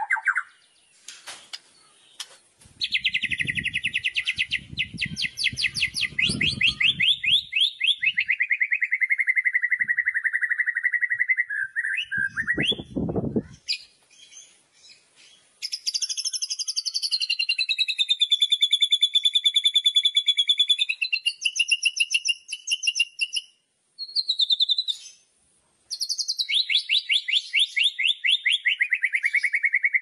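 White-rumped shama singing 'kretekan': long runs of very fast, rattling repeated notes, several of them sliding down in pitch, broken by short pauses.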